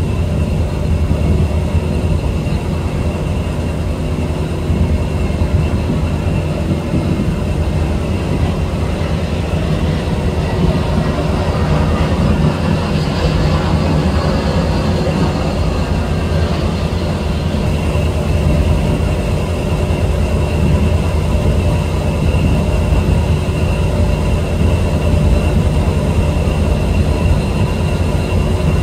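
Steady low drone of a boat's engine running at a constant pace, with a few faint steady whining tones above it.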